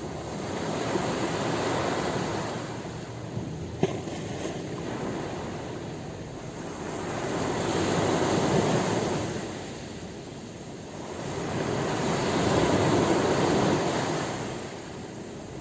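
Ocean surf: waves rolling in and washing out, the noise swelling and falling back three times. A single sharp click just before four seconds in.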